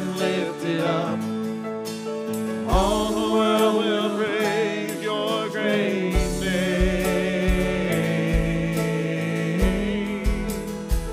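Worship singing with a live band: voices hold long, wavering notes over sustained accompaniment, with drum hits coming in about six seconds in.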